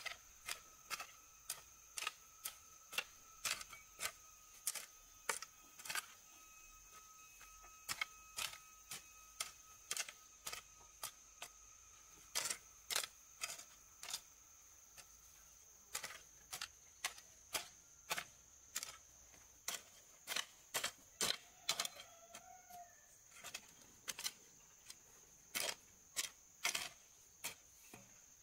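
Hand hoe chopping into dry, stony soil while earthing up tomato plants: a run of sharp strikes, about one to two a second, with a few short pauses.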